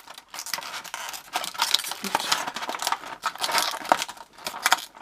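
Plastic packaging crinkling, with many quick clicks and rustles as the small plastic pieces of an action figure are handled and pulled out.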